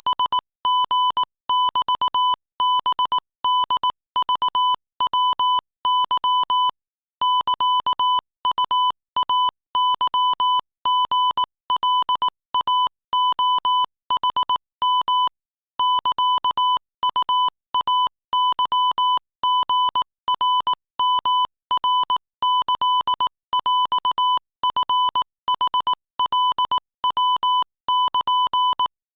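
Morse code sent at 22 words per minute as a steady, high-pitched electronic beep keyed on and off in quick dots and dashes. Longer pauses between words come twice.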